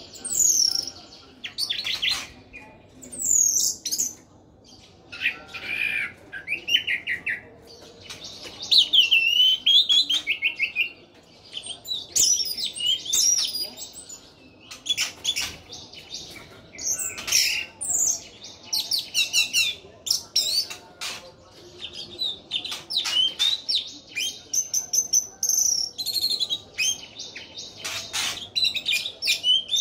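Orange-headed thrush in full song: a long run of varied whistled and warbling phrases with quick chattering notes, broken by short pauses.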